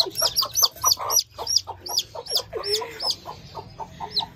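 Desi chicks peeping loudly and rapidly, short high calls each rising then falling, several a second, as a chick is held in the hand. A desi hen clucks lower beneath them.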